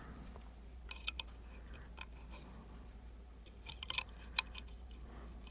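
Small sharp metallic clicks of a lock pick working the pin tumblers of an Emhart Black Belt lock: a few clicks about a second in, one at two seconds, and a quick flurry near four seconds. A faint steady low hum lies underneath.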